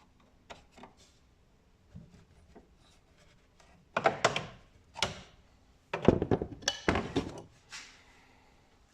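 Hands at work on a car's hood gas-strut fittings: a few light clicks, then louder bursts of knocking and rubbing, the loudest about six to seven seconds in.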